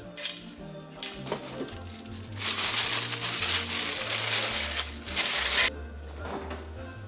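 Plastic cling wrap crinkling loudly for about three seconds as it is pulled and stretched over a stainless steel bowl, after a couple of brief squishes from hands rubbing marinade into raw chicken; background music plays throughout.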